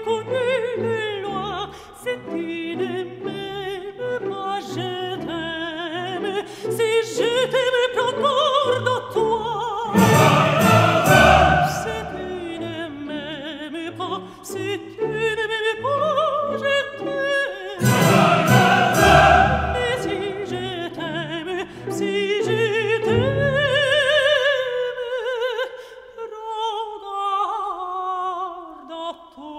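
Classical background music: an operatic voice singing with vibrato over an orchestra. It swells louder twice, about ten seconds in and again near eighteen seconds.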